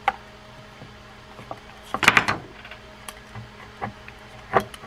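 Small metal clicks and a short rattle from a Penn Peer 209 levelwind reel as it is handled and a screwdriver loosens its levelwind bar. The loudest rattle comes about two seconds in, with single clicks before and after it.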